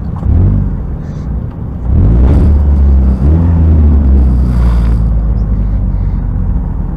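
A 2005 Dodge Neon race car's 2.0 single-cam four-cylinder engine, heard from inside the car, blipped briefly near the start, then revved up about two seconds in and held at higher revs for about three seconds before easing off.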